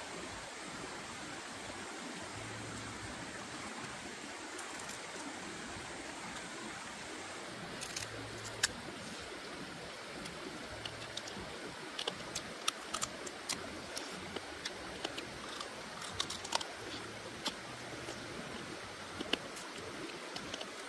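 Steady rush of a stream, with short sharp smacks and clicks of eating by hand (lips smacking, fingers being sucked) scattered from about eight seconds in.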